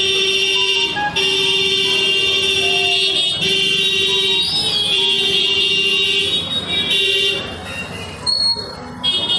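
A vehicle horn sounding in long blasts at one steady pitch, held for about seven seconds with three brief breaks, then stopping.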